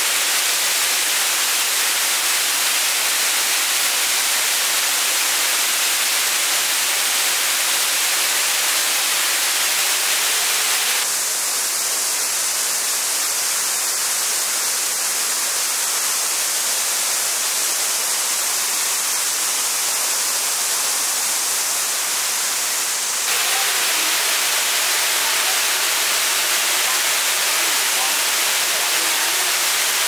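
Steady rush of water pouring over a multi-tiered cascade waterfall. About eleven seconds in, the sound switches abruptly to a different, hissier steady noise for about twelve seconds, then the waterfall rush returns.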